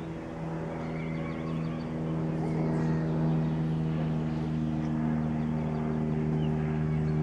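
Cessna F172N light aircraft passing low overhead, its four-cylinder Lycoming piston engine and propeller giving a steady drone.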